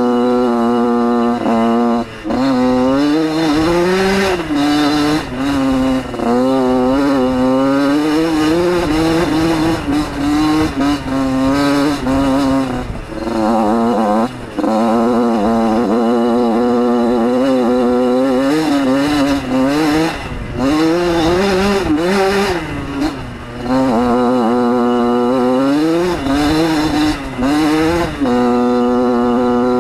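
Yamaha YZ80 two-stroke single-cylinder engine revving up and down as the bike is ridden hard. The pitch climbs and drops repeatedly with brief dips at throttle chops and shifts, and holds a steady note near the start and the end.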